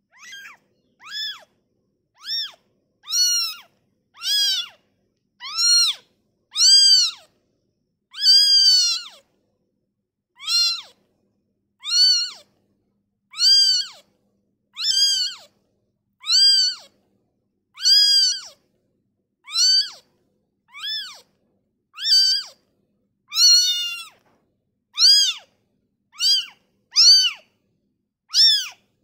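Newborn kitten meowing over and over, about twenty high, shrill calls at roughly one a second, each rising then falling in pitch: the crying of a kitten taken from its mother.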